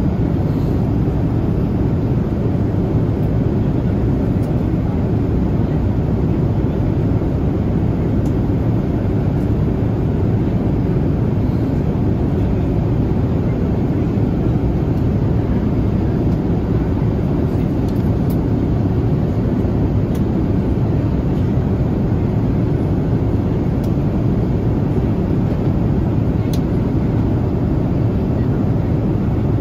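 Steady cabin noise inside a Boeing 787-8 airliner in flight: an even, low-pitched hiss of air and engine noise that does not change.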